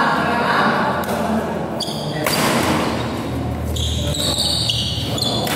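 Badminton rally: rackets strike the shuttlecock with sharp smacks, and shoes squeal in short bursts on the court floor, several times.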